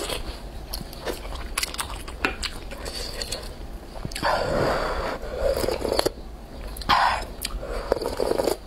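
Chopsticks and a wooden spoon clicking and scraping against a bowl of rice noodles in broth. Then come loud slurping sips of hot broth from the wooden spoon: a long one about four seconds in and another shorter pair near the end.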